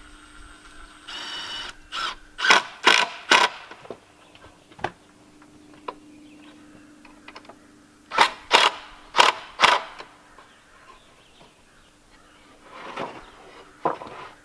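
Cordless drill driving screws into a wooden frame in short spurts: a brief motor whine about a second in, then three quick bursts, and four more a few seconds later.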